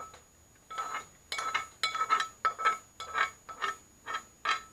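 A bowl being knocked repeatedly, about a dozen quick clinks, each ringing with the same note, as an animal noses at it while feeding on the fish in it.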